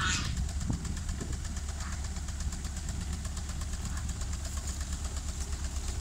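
Genie articulating boom lift's engine running steadily, a low pulsing hum. A brief high-pitched sound comes right at the start.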